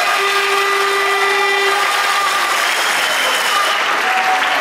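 Audience applauding in a hall, with a few held steady tones sounding over the clapping.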